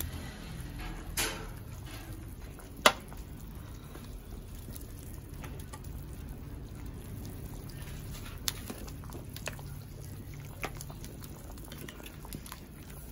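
A plastic ladle scooping beef-and-vegetable stew from a clay pot and pouring it into a clay bowl: liquid sloshing and splashing, with several sharp knocks of the ladle, the loudest about three seconds in.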